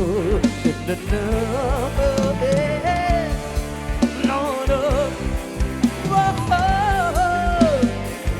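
Live Thai sound-truck band music: a singer's wavering, ornamented melody over a steady bass line and drum kit beat.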